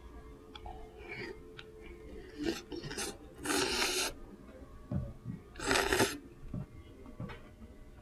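A person slurping ramen noodles: a few short sucks, then two long, louder slurps about three and a half and six seconds in.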